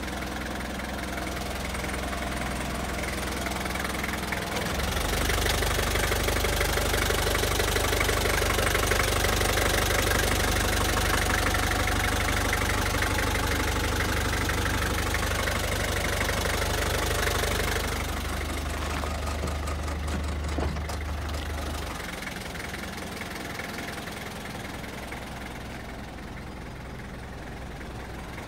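Isuzu Elf light truck's engine idling steadily, louder and deeper through the middle stretch of the clip.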